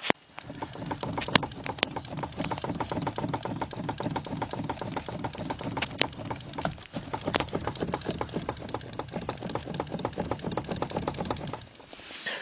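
Steering rack of a 2013 Skoda Fabia knocking: a fast, irregular clatter of sharp knocks, several a second, over a low steady hum, that eases off near the end. The knocking is the sign of a worn steering rack.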